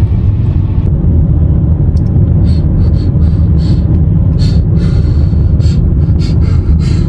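Steady low rumble of a car on the move, road and wind noise heard from inside the car.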